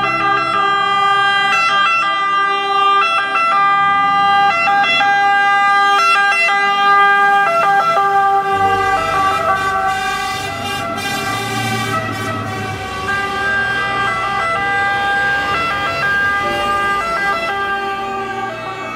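Italian fire engine siren sounding continuously, loud at first and slowly growing fainter over the second half, with the truck's engine rumble joining in about eight seconds in.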